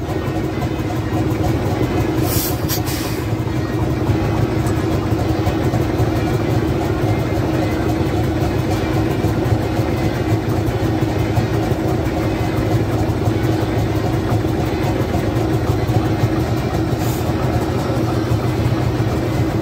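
Vintage tractor engine idling steadily, with a short hiss about two seconds in and again near the end.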